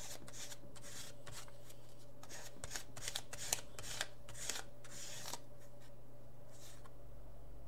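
Paint being rubbed and scraped across a paper index card in repeated quick strokes, with a few sharp clicks in the middle. The strokes stop about five seconds in.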